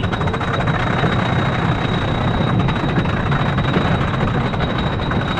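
A Gravity Group wooden roller coaster's lift-hill chain hauling the train uphill: a steady, fast mechanical clatter over a low rumble, with a thin, steady high whine.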